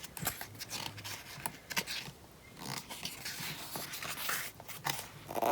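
Scattered soft paper rustles and light taps as the pages of a glossy photobook are handled and turned.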